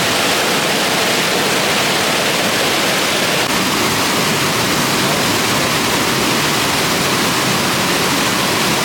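Steady, loud rush of white water tumbling over the rocks of the Potomac River's Great Falls.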